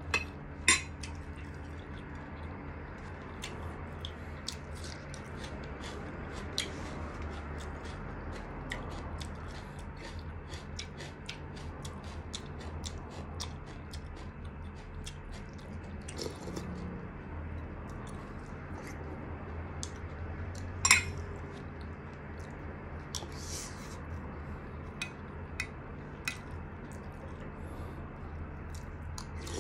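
Eating from a bowl of soup: a spoon and other utensils clink and tap against the bowl and plate in many short clicks, with two sharper knocks, one near the start and one about two-thirds of the way through, over a steady low hum.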